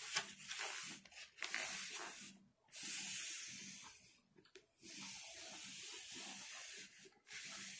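A whole rotisserie chicken being torn apart by hand close to the microphone: a hissing, crackly tearing of skin and meat in several long pulls with short pauses between them.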